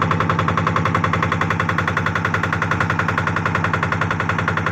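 A small boat's engine running steadily at an even speed, with a fast, regular beat.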